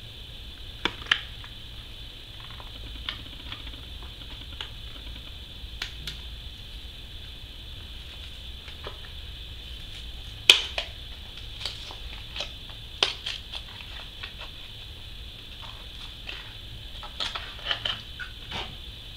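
Plastic blister pack and card being opened by hand: scattered crackles and sharp clicks, the loudest snap about ten seconds in, over a steady high hiss.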